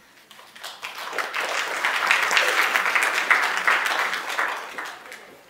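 Audience applauding, the clapping building up about a second in and dying away near the end.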